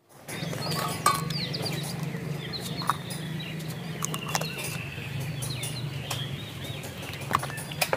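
Birds chirping and calling, with clucking fowl among them, over a steady low hum. Sharp clicks come throughout, the loudest about a second in and again near the end.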